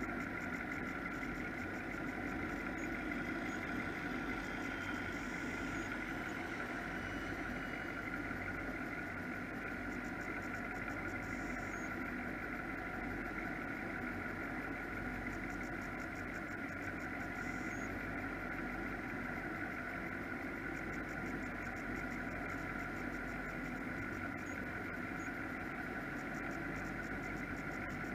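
Offshore powerboat engines idling steadily, an even hum that holds without revving.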